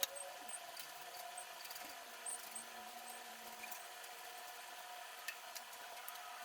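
Faint scattered clicks and taps over a steady low hum, with one sharper click at the very start.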